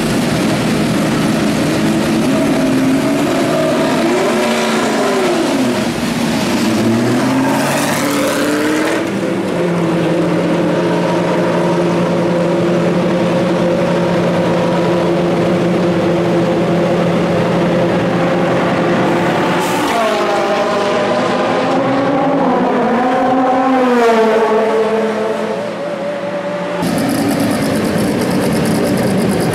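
Ford GT race car's V8 engine blipping its revs up and down, then pulling away and holding a steady engine note as it drives down the pit lane, with more rises and falls in revs later. About 27 seconds in the engine sound changes abruptly to that of another race car.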